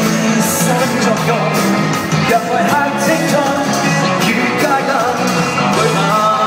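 Live pop-rock band playing loud and steady, with electric guitar, drums and a singing voice.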